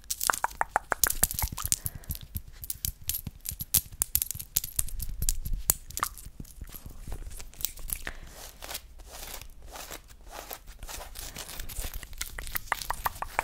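Close-miked ASMR mouth sounds and hand sounds: fast, irregular crisp clicks and crackles right at the microphone, thinning out past the middle and picking up again near the end.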